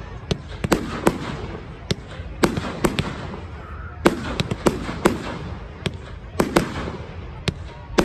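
Fireworks going off in a rapid, irregular run of sharp bangs, about two a second, each echoing briefly, over a continuous rumble.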